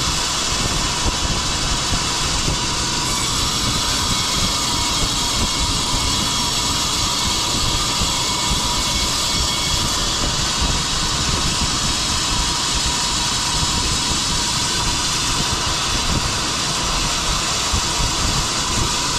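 Sawmill machinery running steadily while pine logs are sawn into slabs, a loud, even mechanical noise with no pauses.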